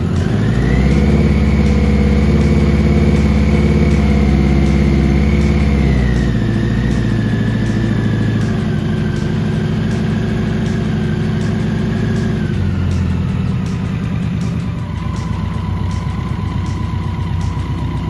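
BMW K100's liquid-cooled four-cylinder engine idling just after its first start following about five months laid up. It runs at a high idle for about six seconds, then drops in two steps and settles lower, and a high whine falls in pitch along with it.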